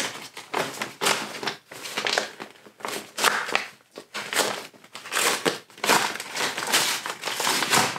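Plastic mailing bag crinkling and rustling in irregular bursts as it is handled and pulled open.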